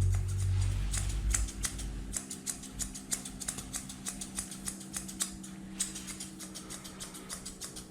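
Grooming scissors snipping through a Pomeranian's coat: quick, irregular crisp snips, several a second. A low steady hum cuts off about a second and a half in.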